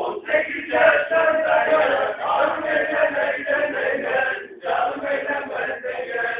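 A group of voices singing or chanting together in a folk-style song, with a brief pause between phrases about two-thirds of the way through.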